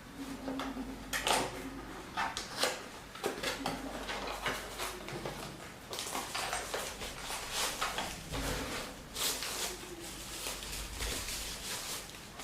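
Irregular clicks, knocks and rustling of hands handling equipment, as a camera is fitted to a trinocular microscope and its HDMI cable connected, over a faint steady low hum.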